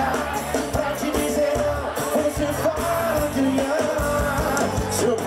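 Live band music with a male lead singer singing, played by a band with accordion and electric bass in a forró style.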